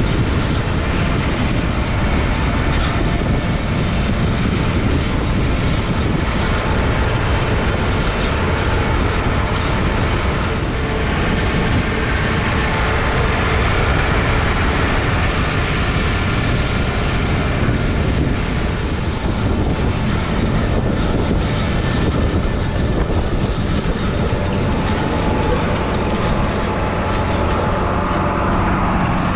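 Heavy machinery running steadily: a loud, continuous rumble with a rattling, clattering texture.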